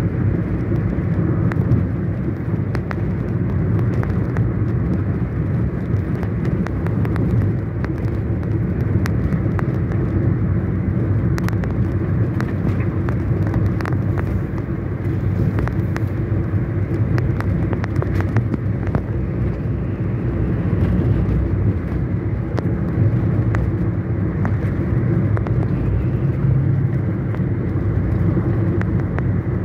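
Car driving on a rough country road, heard from inside the cabin: a steady low engine and tyre rumble, with scattered small clicks and rattles.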